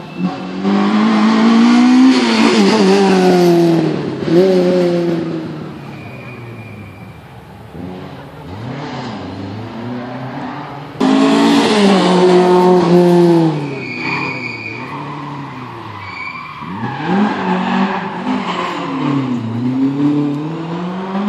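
Rally cars at full speed on a tarmac stage, engines revving hard and rising and falling in pitch through gear changes as they pass. The loudest passes come about a second in and again from about eleven seconds in, with more revving near the end.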